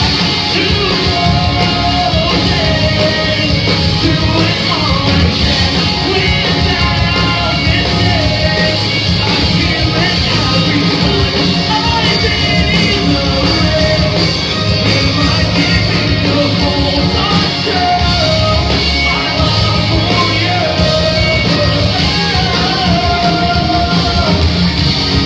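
Live rock band playing loud electric guitar-driven music with a singer's voice carrying the melody, heard in a club hall.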